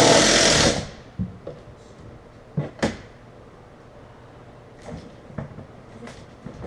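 A loud harsh rattling noise that cuts off about a second in, followed by a few scattered knocks and clunks of objects being handled.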